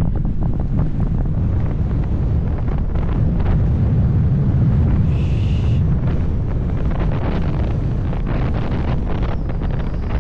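Wind buffeting the microphone: a steady, heavy low rumble with ragged gusting.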